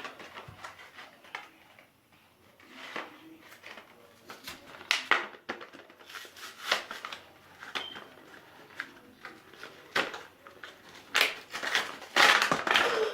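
Irregular handling noises of slime-making materials and containers: short rustles, scrapes and light knocks, with a louder cluster of rustling scrapes near the end.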